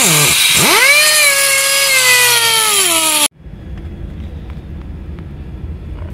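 A high-speed power tool cutting the metal shift lever: a loud whine that dips sharply and picks back up just after the start, then slowly sags in pitch. It stops abruptly about three seconds in, leaving a quieter low rumble.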